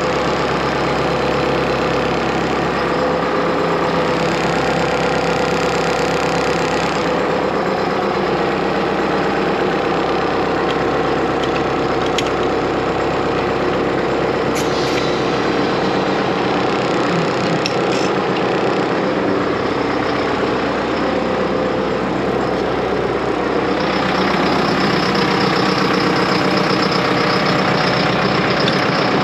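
John Deere 6430 tractor's six-cylinder diesel engine running steadily, close to idle.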